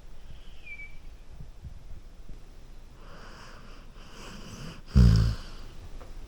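A golden retriever snoring in its sleep: a noisy drawn-out breath of about two seconds, then a short, loud low breath-out about five seconds in.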